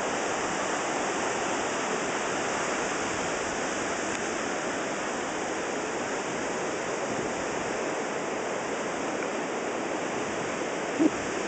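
Steady rushing noise with no rhythm, broken near the end by one short, loud, low-pitched blip.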